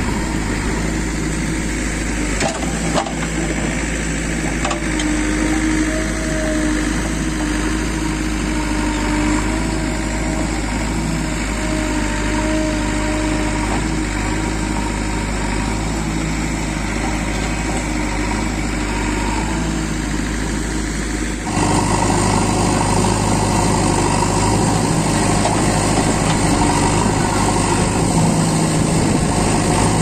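Diesel engine of a JCB backhoe loader running steadily under work as it digs and dumps soil into a tipper lorry, with a few short knocks about three seconds in. About two-thirds of the way through, the sound cuts abruptly to a louder, closer engine.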